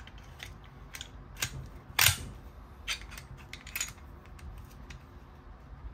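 Scattered clicks and clacks of a Glock pistol's slide and frame being handled, as the slide is worked into line with the frame so the trigger can be pulled. The slide is stuck because the recoil spring guide rod was left out. The sharpest clack comes about two seconds in.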